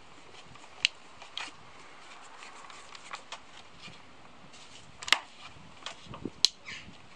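A few sharp clicks and taps from small engine parts and hand tools being handled, the loudest about five and six and a half seconds in, over a faint steady hiss.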